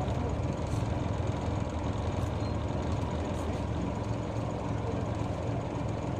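A city route bus's diesel engine running steadily, heard from inside the passenger cabin as an even low hum.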